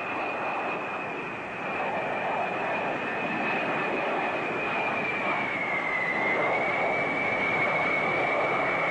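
Jet engines of a low-flying B-52 bomber: a steady rushing roar with a high whine on top. The whine dips slightly in pitch about six seconds in, then holds, as the roar grows a little louder.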